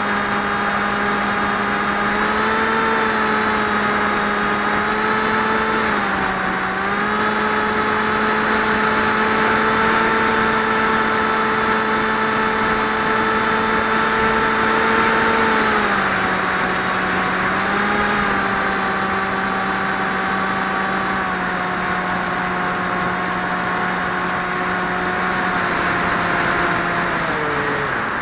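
Swift 2 flying wing's electric motor and propeller, heard from the onboard camera, running at a steady drone with rushing air. The pitch dips briefly about six seconds in, steps down about sixteen seconds in, and falls as the throttle is pulled back near the end.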